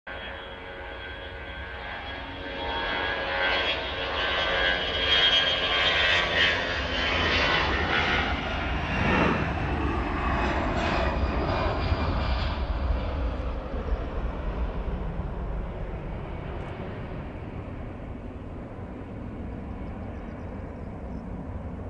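Airbus A340-600's four Rolls-Royce Trent 500 turbofans running at taxi power as the airliner taxis and turns onto the runway: a steady jet rumble with high whistling tones, swelling a few seconds in and easing off after about thirteen seconds.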